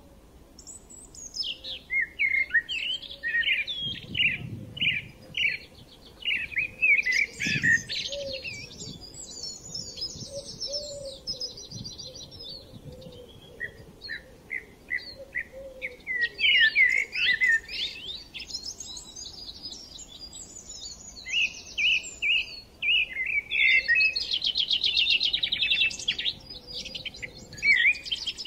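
Small birds chirping: runs of quick, high chirps and fast trills in bursts, with brief lulls now and then.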